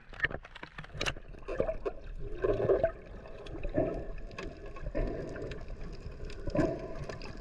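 Water gurgling and bubbling in short bursts roughly every second, with scattered faint clicks.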